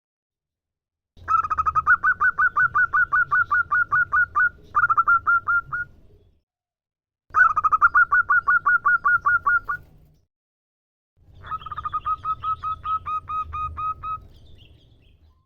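Female zebra dove (perkutut) giving her calling note to attract males: three bouts of rapid, evenly repeated short notes, about six a second, the first bout about a second in and the last ending a second before the end.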